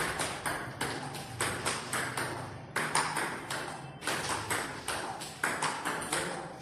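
Table tennis balls clicking in a quick, steady rhythm, about three a second, in a multiball drill: balls fed from a basket bounce on the table and are struck back by bats.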